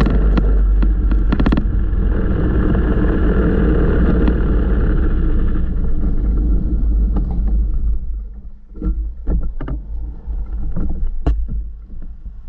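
Go-kart engine running close to the on-board microphone, with a rapid crackle in the first second or two; the engine sound eases and drops away about eight seconds in as the kart slows to a stop, leaving a few scattered clicks and knocks.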